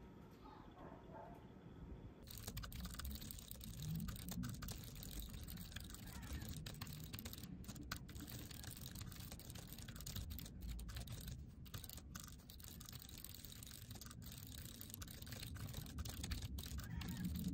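Typing on a low-profile computer keyboard: a quick, uneven patter of soft key clicks that starts about two seconds in.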